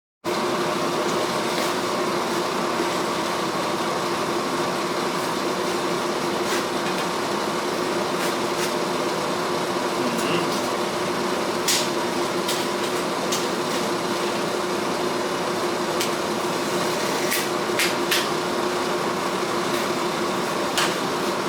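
Steady droning hum of running shop equipment, with about ten light, sharp ticks scattered through it.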